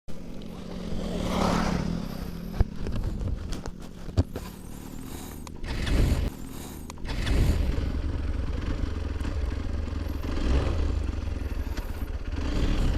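Motorcycle running with a steady low engine rumble under scattered clattering and scraping, with a couple of sharp knocks in the first few seconds.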